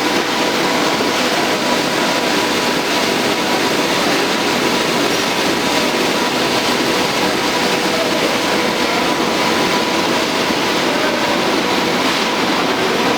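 Paper roll slitting machine running: a steady, even mechanical rush with a thin constant whine through it.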